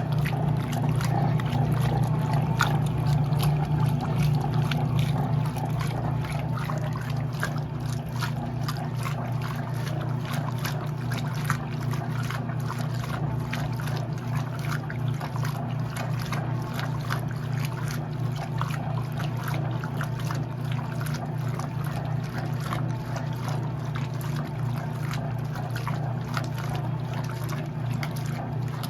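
Electrolux LE06DBD top-load washing machine running, with water sloshing and trickling in the tub over a steady motor hum.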